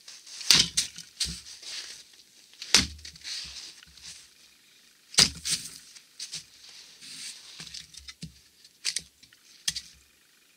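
Wetterlings Bushman hatchet chopping into a dry beech log on a chopping block: three sharp chops about two and a half seconds apart as the log splits. Near the end come a couple of lighter wooden knocks.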